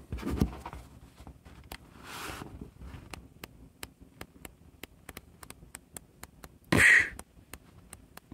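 Paper pages of a small hand-drawn flipbook being let go off the thumb one at a time, each giving a sharp click, about three a second. A short loud burst of hissy noise comes about seven seconds in.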